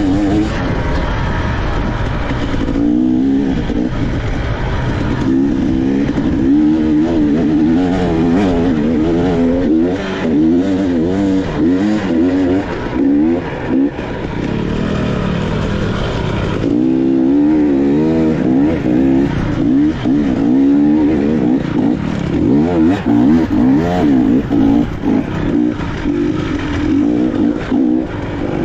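Dirt bike engine revving up and down as the rider works the throttle through the gears, with quick on-off throttle blips near the end.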